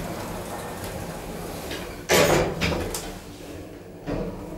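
Sliding car doors of a 1999 Schindler traction elevator closing, shutting with a loud knock about two seconds in, followed by a softer knock near the end.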